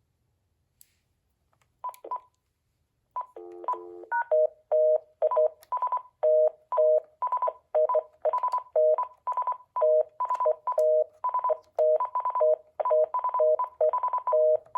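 Cordless phone keypad beeping as buttons are pressed in quick succession to step through its memory locations: a couple of short beeps, then a fast run of short electronic beeps, about three a second, switching between a lower and a higher pitch.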